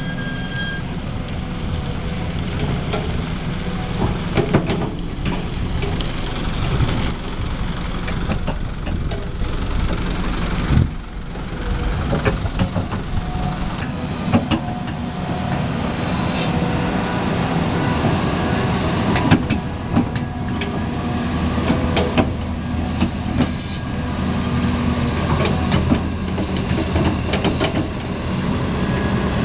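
Caterpillar 320D hydraulic excavator's diesel engine running under load as it digs and swings dirt, with scattered knocks and scrapes from the bucket and soil.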